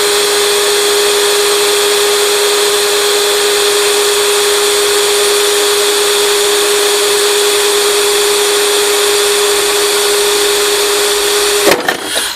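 Cordless drill spinning a WorthyTool vacuum-brazed diamond hole saw, held upright under load and grinding through ordinary ceramic tile: a steady whine over a hissing grind. Near the end the drill stops with a few sharp clicks as the tile cracks through.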